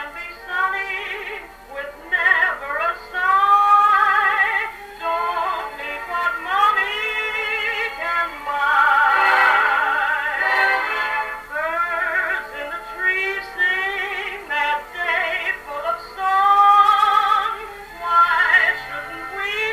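A Decca 78 rpm record of a woman singing with a dance orchestra, played on an acoustic Victor talking machine. The sound is thin, with no deep bass or bright top, and the voice has a wide vibrato.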